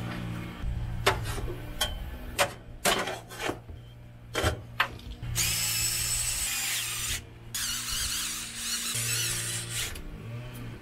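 Several sharp knocks and clicks of hardware being handled, then a power drill driving screws to mount a hose clamp on the wet-bay wall: two runs of a whirring whine that wavers in pitch, the first about two seconds long, the second a little longer.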